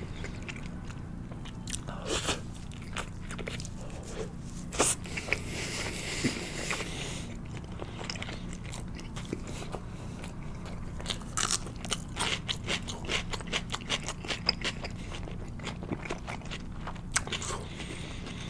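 Close-miked chewing of soy-marinated salmon nigiri, with many short, wet mouth clicks. A brief hiss comes in about five to seven seconds in.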